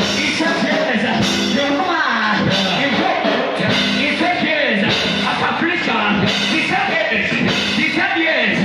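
Loud live amplified music with a man singing into a microphone over it.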